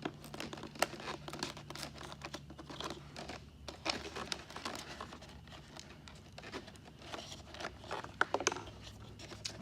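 Plastic and foam parts of an electric ducted-fan RC jet being handled and worked apart: irregular clicks, scrapes and crinkling.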